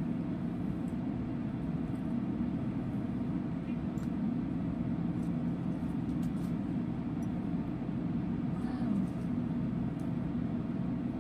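Steady low rumble of background noise, even throughout, with a few faint clicks.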